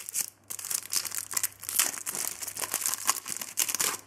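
Foil wrapper of a Panini Adrenalyn XL trading card packet crinkling in many quick crackles as it is torn open by hand.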